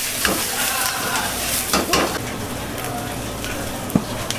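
Cabbage sizzling as it is stir-fried in an iron wok, with a metal ladle scraping and knocking against the wok a few times; the sharpest knock comes near the end.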